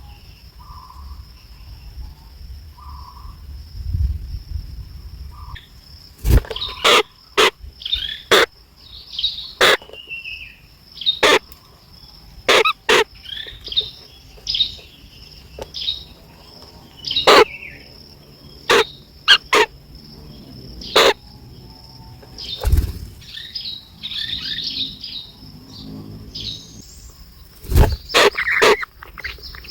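Hungry nestling birds chirping in short, high, irregular bursts, with many sharp clicks and knocks in between. A thin steady high tone runs underneath.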